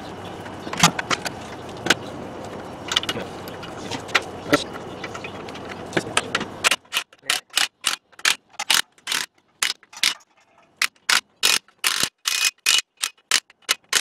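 A mallet knocks the wheel of a 2001 GMC Savana G3500 onto its hub several times, about a second apart. About seven seconds in the background drops away and a DeWalt cordless impact wrench runs in many short bursts, spinning on and snugging the lug nuts.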